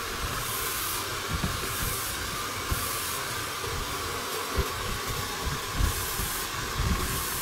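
Handheld hair dryer blowing hot air in a steady hiss, with a few soft low bumps now and then.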